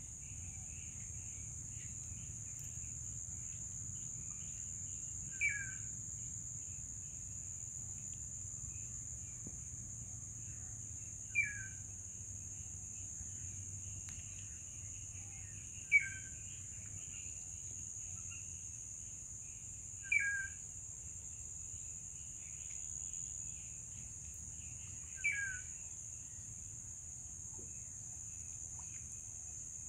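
A steady high-pitched insect chorus, with a bird giving a short falling two-note call about every five seconds, five times in all.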